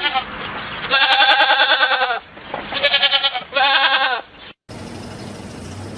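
Goat bleating: three quavering bleats, the first longer and the last two short. About two-thirds of the way in, the sound cuts to a different recording that holds only faint background noise.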